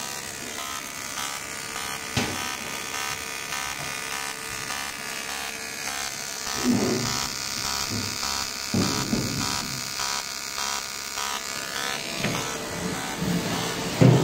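Steady electric buzz of an automatic welding arc running along a steel fuel tank seam, with a few short knocks and clunks from the machine.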